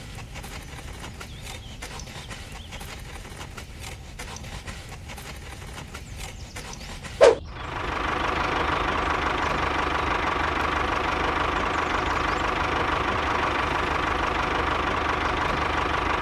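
Scattered light clicking for about seven seconds, then a short loud knock and a small motor starting and running steadily with a constant hum.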